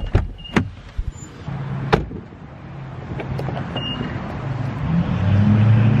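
Inside a car as it pulls in to park: a few sharp clicks in the first two seconds, then the steady low hum of the running car, growing louder near the end.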